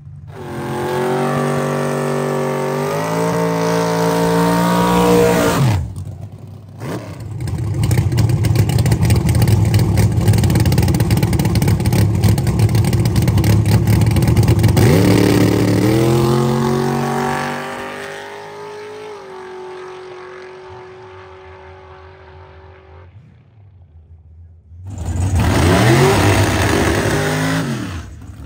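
Drag race car engines. One engine revs up in steps, then cuts sharply, followed by a long, loud, rough stretch full of pops. Its revs then climb again and settle into a steady note that fades away. Near the end, another burst of revving rises and falls.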